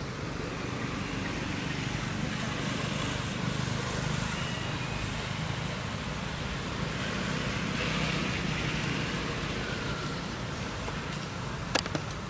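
Steady outdoor background noise with a low rumble, like distant road traffic, and a few faint short high calls. A sharp click comes near the end.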